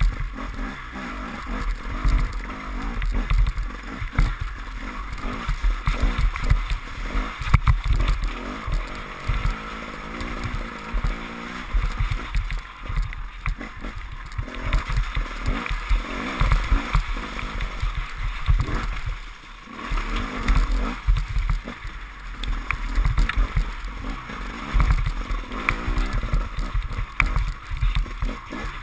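KTM enduro motorcycle engine running under changing throttle as the bike is ridden over a muddy trail, its level rising and falling and easing off briefly about two-thirds through, with frequent low thumps and buffeting on the microphone.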